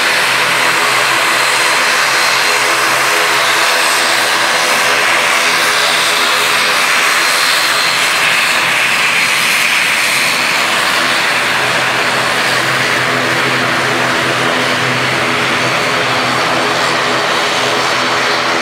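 ATR 72-500 turboprop airliner's two Pratt & Whitney PW127 engines running at taxi power: a steady propeller drone under a loud high turbine hiss. It eases slightly in the second half as the aircraft taxies past and away.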